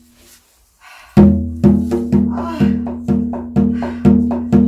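Korean shaman ritual percussion: a ringing gong, struck in a steady beat about twice a second, starts about a second in after a short pause.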